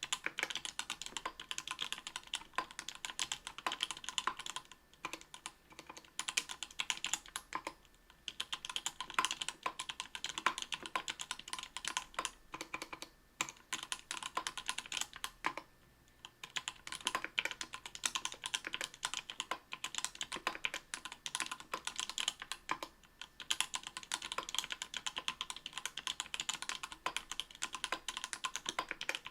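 Steady fast typing on a mechanical keyboard with lubed Everglide Coral Red 67g linear switches (Krytox 105) on an aluminum plate with GMK keycaps, in a dense run of key strikes broken by a few short pauses.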